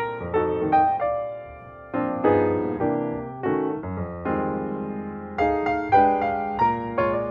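Background piano music: notes and chords struck one after another and dying away.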